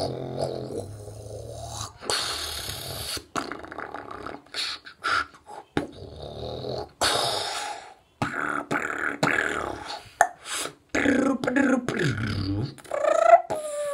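A teenage beatboxer making drum sounds with his mouth: sharp clicks and kick- and snare-like hits broken up by hissing bursts. It opens with a low buzzing hum, and near the end a vocal tone glides downward in pitch.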